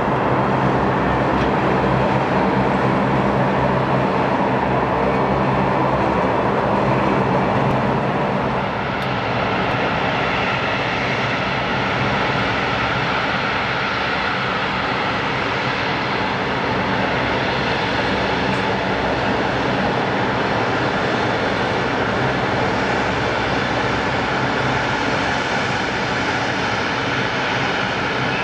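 Kawasaki C-1 transport's two JT8D turbofan engines running at taxi power: a steady jet rumble and whine. The level dips slightly about eight seconds in, and the whine grows brighter in the second half as the aircraft swings round to face the listener.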